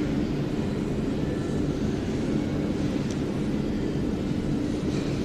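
Steady low rumble with a faint constant hum, unbroken throughout.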